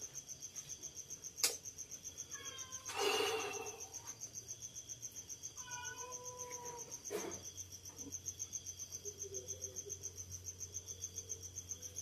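Steady, fast-pulsing chirping of insects, with a few short gliding squeaks from a pigtail macaque as it is being dressed. A sharp click comes about a second and a half in, and a louder brief burst of noise around three seconds.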